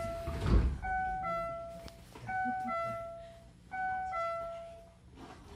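Train door chime, a higher note followed by a lower one, repeating about every one and a half seconds. A thump about half a second in is the sliding doors shutting, with a faint steady hum underneath.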